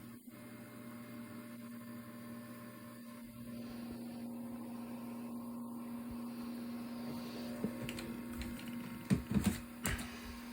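Power Mac G5 Quad's cooling fans running with a steady hum as the machine boots, growing gradually louder from a few seconds in. A few sharp clicks near the end.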